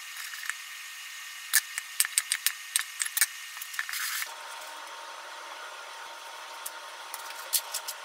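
Kitchen knife cutting a tomato on a mango-wood cutting board: a quick run of sharp knocks between about one and a half and three seconds in. About four seconds in a steady hum starts, with a few light taps later on.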